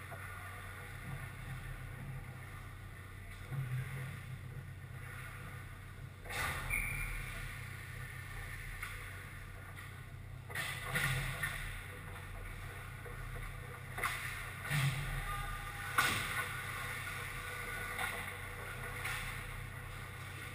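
Indoor ice hockey rink during play: a steady low hum of the arena, broken every few seconds by short scrapes and knocks of skates and sticks on the ice.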